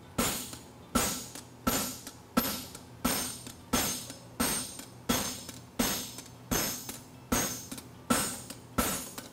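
Hammer blows on a hot steel draft horseshoe on the anvil, one strike about every 0.7 seconds, each with a short metallic ring, as the shoe is beveled and flattened.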